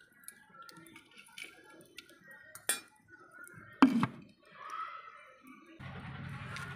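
Metal tongs clinking against pieces of charcoal in a clay pot, with light clicks and one loud clink about four seconds in. Near the end a steady noise of a burning wood fire comes in.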